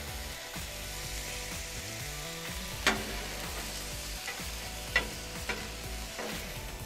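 Beef and vegetable stir fry sizzling on a hot Blackstone flat-top steel griddle while a metal spatula scrapes it up. Sharp clanks of the spatula on the steel come about three seconds in, then twice more about two seconds later.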